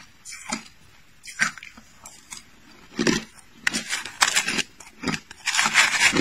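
Crushed ice being crunched between the teeth close to the microphone: irregular sharp crunches, sparse at first, then more frequent and louder from about three seconds in.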